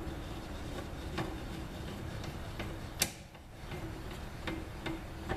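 Scattered light clicks and taps of drill press parts being moved and handled during assembly, with one sharper click about three seconds in.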